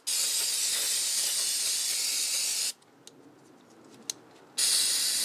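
Aerosol carburetor cleaner spraying over a small-engine carburetor to wash off dirt. There are two bursts of hiss: a long one of nearly three seconds, a pause with a few light clicks, then a second burst about a second long near the end.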